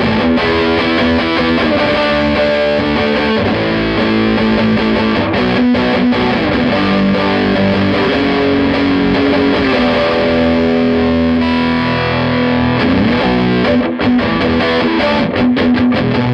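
Electric guitar played through a Fender Champ 12 tube amp with the gain turned all the way up: heavily distorted sustained notes and chords, a string bend a little before the end, then a few short choppy chords near the end.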